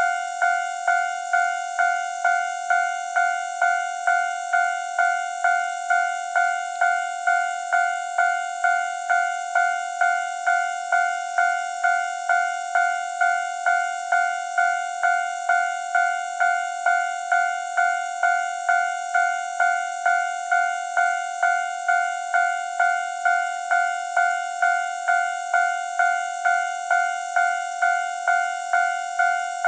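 Japanese railway level-crossing warning bell ringing, a steady run of evenly spaced ding strikes on one pitch, about one and a half to two a second: the signal that a train is approaching and the crossing is closed.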